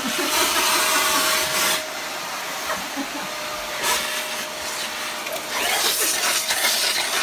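Upright vacuum cleaner running with its hose wand held at a dog's muzzle: a steady motor tone under a rushing suction hiss. The hiss is louder for the first two seconds, drops back, and swells again near the end.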